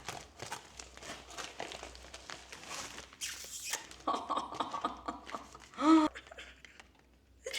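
Plastic parcel packaging rustling and crinkling with quick irregular clicks as it is torn and pulled open by hand, followed by a short voiced sound about four to six seconds in.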